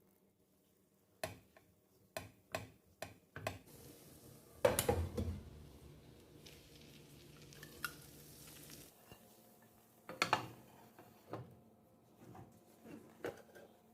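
Kitchen utensils knocking and clinking against cookware: a run of short separate clicks, a louder clatter about five seconds in, then a few more scattered knocks.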